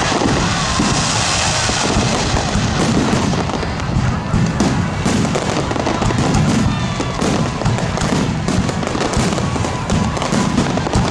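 Fireworks display: shells bursting and a dense, continuous crackle of many small reports, over the show's music soundtrack.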